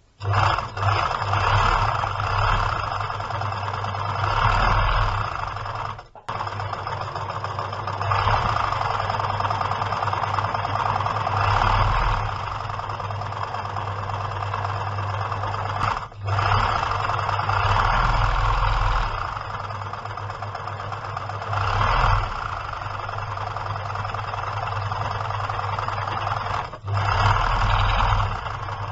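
1972 Łucznik KL.441 electric sewing machine running, sewing straight and zigzag seams with its needle and motor going steadily. Its speed swells and eases, and it breaks off briefly three times. The machine sews properly again after its revival.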